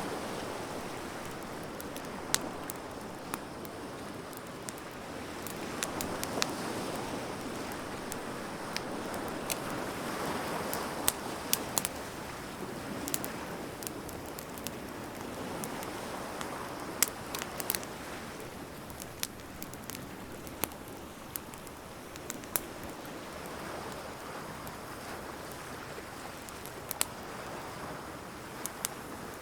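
Wood fire crackling with frequent sharp pops and snaps, over a steady wash of surf that swells and eases.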